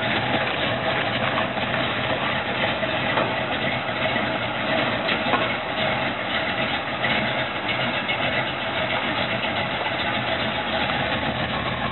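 Chevrolet Nova's engine idling steadily, with an even low hum and no revving.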